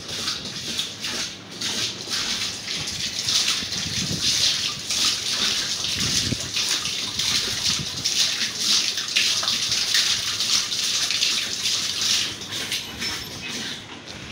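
Water gushing from a clear plastic pipe into a plastic water storage tank, splashing steadily onto the water already inside and off a hand held in the stream. The splashing is loudest through the middle and eases near the end.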